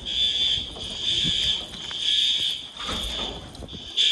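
Fire alarm horns sounding, a high tone pulsing on and off about once a second: the building's fire alarm system in alarm.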